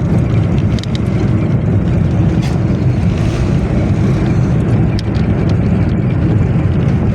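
Steady engine rumble of a moving vehicle, with wind buffeting the microphone.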